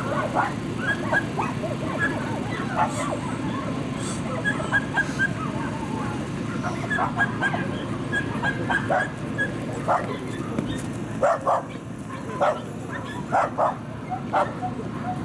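Dogs barking and yipping in short, repeated calls, some in quick runs, with the loudest barks in the last few seconds, over steady low background noise.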